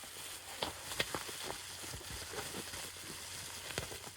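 Bubble wrap being squeezed to imitate the crackle of a fire: irregular sharp pops, the loudest about a second in, over faint crinkling.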